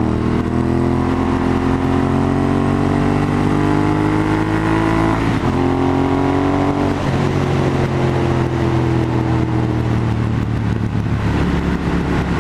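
Motorcycle with Meerkat Norton-style exhausts accelerating through the gears, heard from the rider's seat. The engine note climbs, drops at upshifts about five and seven seconds in, then levels off and eases down as it settles into a cruise.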